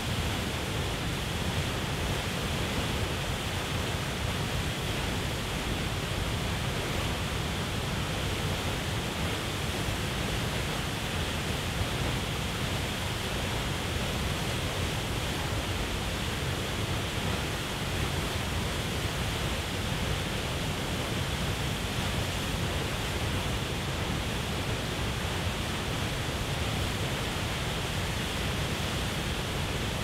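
Large waterfall plunging into its pool: a steady, unbroken rush of falling and churning water.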